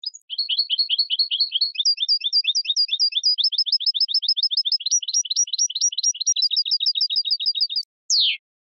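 European goldfinch singing: a long, fast trill of repeated chirping notes, about eight a second, whose note pattern changes a few times along the way. It ends with a single sharp note sliding steeply downward.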